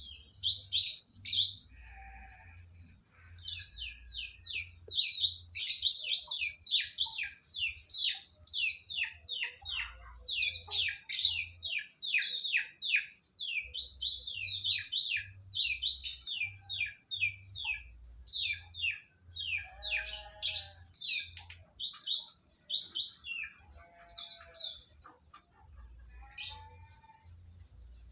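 Oriental magpie-robin (kacer, Medan type) singing: loud, fast runs of sharp falling whistled notes in phrases of a few seconds with short pauses, thinning out near the end.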